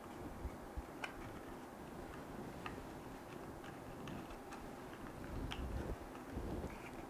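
Faint, irregular ticks and crackles of thin card being pressed and folded by hand as a small glued box lid is shaped, over a low steady room rumble.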